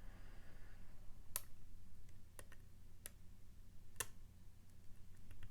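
Lock pick tapping the pins of a Mul-T-Lock MT5+ dimple lock: about four sharp, separate clicks roughly a second apart, with a few fainter ticks between, as the picker feels for the one pin still catching on an edge. A steady low hum underneath.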